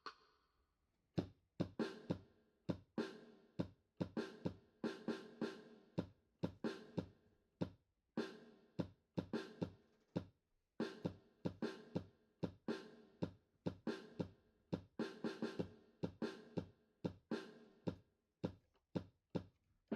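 Music with a drum-kit beat: sharp, separate drum hits, several a second, starting about a second in.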